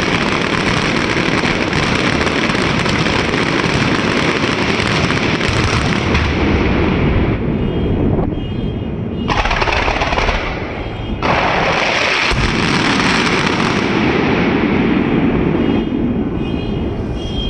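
Dense, rapid-fire barrage of fireworks and firecrackers going off in an unbroken rattle of bangs. It thins briefly about eight and eleven seconds in, then picks up again.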